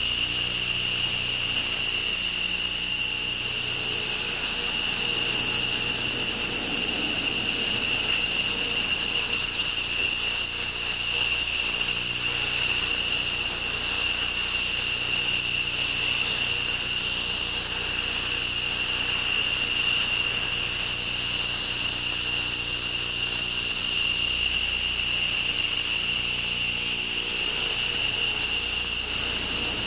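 F-15 fighter jet engines idling on the ramp: a steady high-pitched whine over a low hum.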